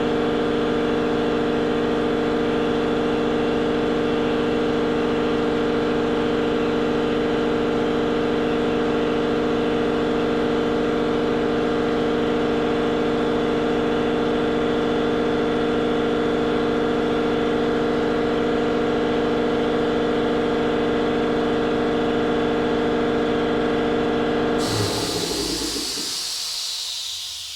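A machine's motor runs at a steady, unchanging speed, then shuts off near the end, and a loud hiss starts at once.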